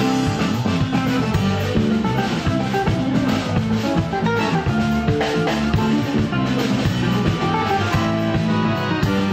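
Live band playing: accordion, hollow-body electric guitar, bass guitar and drum kit.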